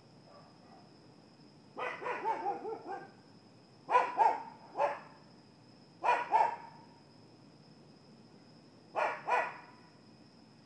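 Dog barking in bouts: a quick run of barks about two seconds in, then groups of two or three barks every two to three seconds.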